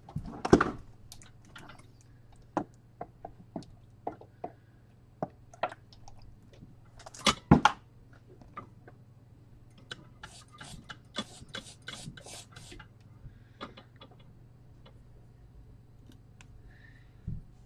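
Scattered clicks and light taps of small tools being handled on a workbench, with a louder knock about half a second in and another around seven and a half seconds, and a quick run of high ticks in the middle, over a steady low hum.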